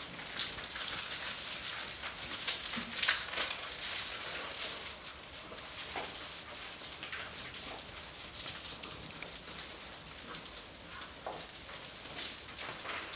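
A litter of Doberman Pinscher puppies scuffling at play: a busy patter of small paws and claws scrabbling on the floor, with a brief whine or two.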